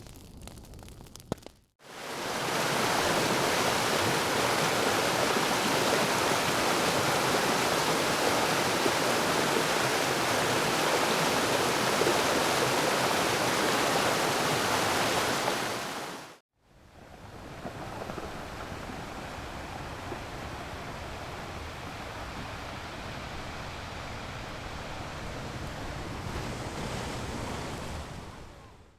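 Two steady rushing-noise ambience beds of the kind used as background sound effects: a louder one fading in about two seconds in and stopping abruptly past the middle, then after a short gap a quieter one that runs until just before the end. A brief crackly tail of the previous effect comes first.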